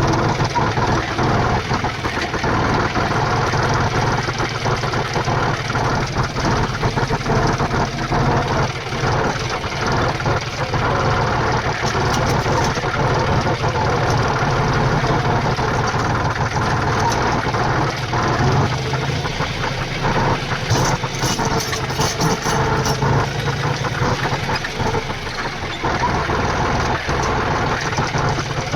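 Tractor diesel engine running at a steady speed, a continuous low hum with a knocking rattle.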